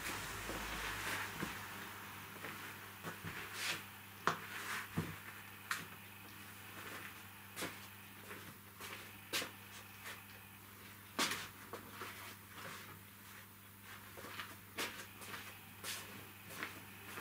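A large upholstery foam sheet shaken out and laid down over a sofa seat, a soft whoosh at first, then scattered light knocks and clicks as it is handled and positioned.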